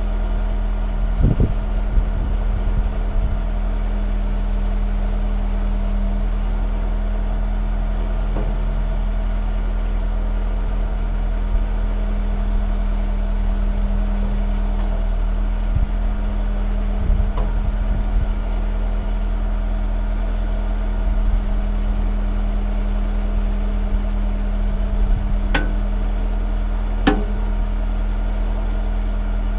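A heavy machine engine running steadily at constant speed, with a few knocks about a second in and midway, and two sharp clicks near the end.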